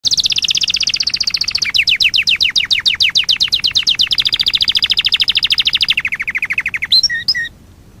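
Domestic canary singing a continuous song of rapid high trills. It shifts from one fast-repeated note to another several times and drops lower near the end. It closes with a few separate notes and stops shortly before the end.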